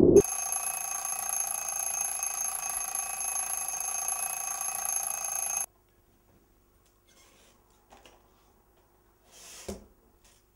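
A steady electronic drone of several held tones over a hiss, which cuts off suddenly about halfway through. After a few nearly quiet seconds comes a short rustle and knock near the end, as a gloved hand takes hold of a wicker hamper's lid.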